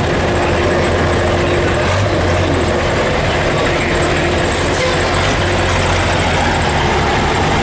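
Heavy diesel truck engine idling steadily.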